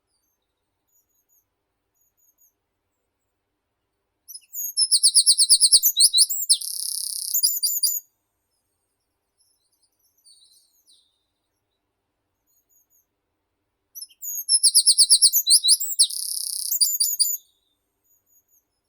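A meadow songbird sings twice, about ten seconds apart. Each song is a fast run of repeated high notes that goes into a buzzy trill, with a couple of notes at the end.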